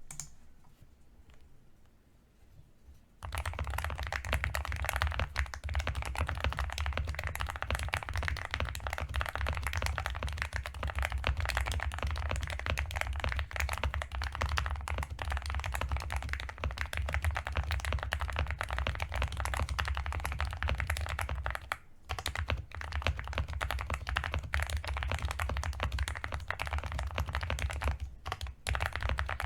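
Typing on a Yunzii AL66 mechanical keyboard with stock milk switches: a dense, continuous stream of keystroke clacks that starts about three seconds in and breaks off briefly twice in the later part.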